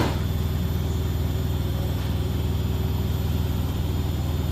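Beko WS832425s front-loading washing machine spinning at high speed, around 1,200 RPM, with a steady, loud low rumble. The drum is running badly off balance.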